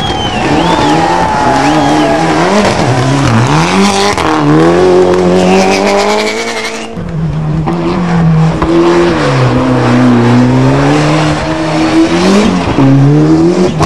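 Rally car engines revving hard through a hairpin, the pitch climbing and dropping over and over as the throttle is worked and gears change. There is an abrupt break about seven seconds in, after which an engine revs up and down again.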